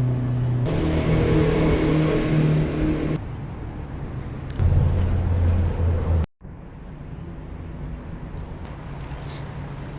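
An engine running steadily under wind hiss. A deeper hum swells for a couple of seconds, then the sound cuts off abruptly about six seconds in and gives way to quieter wind noise.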